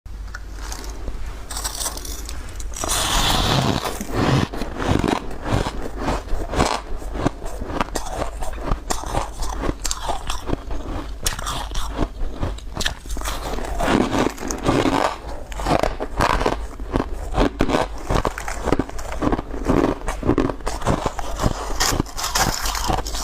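Chunks of powdery shaved ice being bitten and chewed close to the microphone: crisp, squeaky crunching that goes on bite after bite, growing louder about three seconds in.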